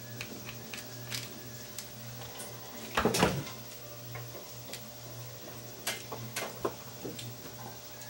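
Hand work on an opened plastic EV charge connector: scattered light clicks and taps of the housing, wires and tools. A louder clunk comes about three seconds in as the cordless screwdriver is set down, and a few smaller knocks follow near six to seven seconds, over a steady low hum.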